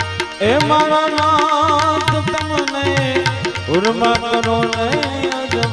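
Live Gujarati devotional folk song: a male singer slides up into long held notes with wavering pitch, a second phrase starting near the end, over harmonium, a tabla rhythm and the steady clicking of small hand clappers.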